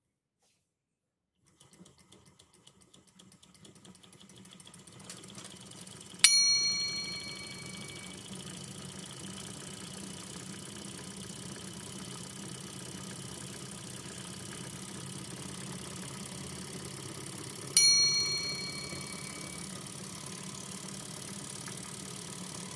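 Homemade soda-can Stirling engine starting to run: faint quick ticks that build within a few seconds into a steady mechanical running noise from its spinning flywheel and wire crank. Two sharp metallic rings, about eleven seconds apart, each die away over about two seconds.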